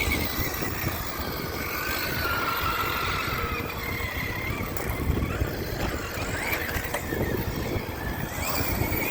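Brushless electric RC truck driving hard on rough ground: its motor whine rises and falls in pitch as the throttle is worked, over a constant rumble of tyres and wind.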